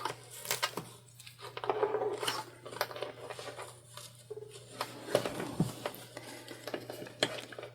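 Fabric rustling with scattered small clicks and clinks as the layers of a sewn bag and their sewing clips are handled and readjusted.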